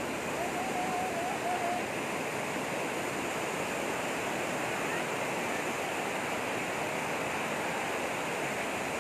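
Rain-swollen stream rushing strongly, a steady roar of fast-flowing water.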